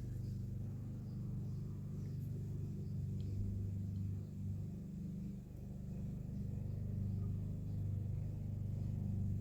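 A steady low machine hum, like a small motor running, with a slight waver in pitch and a brief dip about halfway through.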